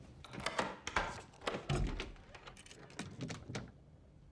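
An apartment door being unlocked and opened: a quick run of metallic clicks, rattles and knocks lasting about three and a half seconds, with one heavier thump near the middle.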